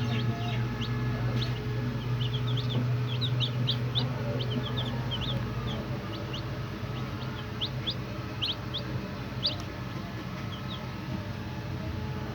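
Many baby chicks peeping in quick, high, shrill notes, in irregular clusters, over a steady low hum.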